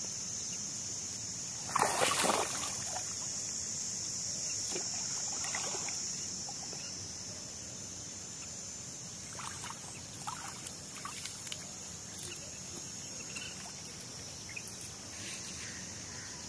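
Light water sloshing and splashing around a man wading in shallow lake water after hand-casting a fishing line, with one short, loud burst of noise about two seconds in. A steady high-pitched hiss sits underneath.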